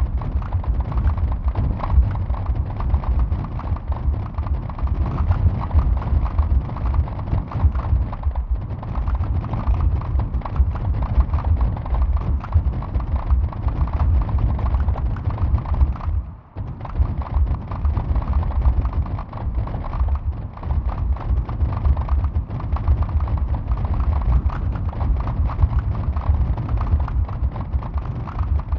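Sonified earthquake swarm: recorded seismic waveforms of the 2022 Reykjanes Peninsula tremors played back a thousand times faster than real time, each tremor triggering one short sample, so that they pile up into a dense, unbroken patter of low thuds. The pitch of each sample marks the quake's depth, and its length and loudness mark the magnitude. There is a brief lull about sixteen seconds in.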